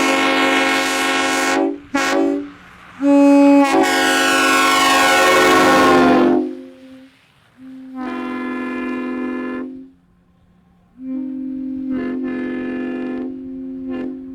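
Multi-chime locomotive air horn sounded in a series of blasts: a loud long blast, a brief toot, then another long blast whose chord drops in pitch as it passes by. Three quieter blasts follow as it moves away.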